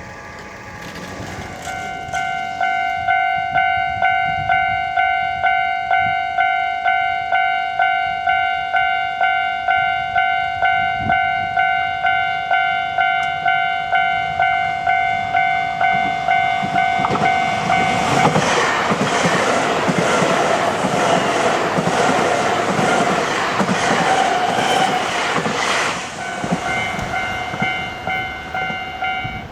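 Japanese level-crossing alarm ringing in a steady beat of about two strokes a second. About two-thirds of the way through, a train runs past for around eight seconds, its wheels clacking over the rail joints and drowning the bell, which is heard again near the end before it stops abruptly.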